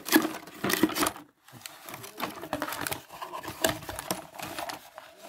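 A cardboard box being handled and opened, with small metal motorcycle parts clicking and rattling against each other and the box as they are lifted out. The knocks come irregularly, with a brief pause a little over a second in.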